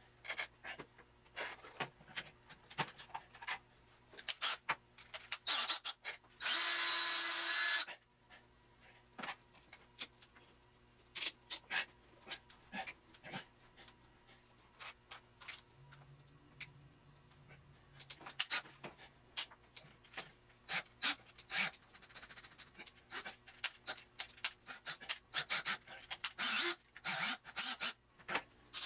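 Workbench handling noises: scattered knocks, taps and rubbing as clay and wooden blocks are moved about. About six seconds in, a DeWalt 18-volt cordless drill runs once for about a second and a half, the loudest sound.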